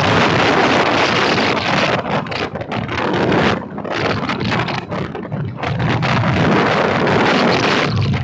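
Wind buffeting the microphone on a moving vehicle, with engine and road noise underneath. The rush eases briefly a couple of times.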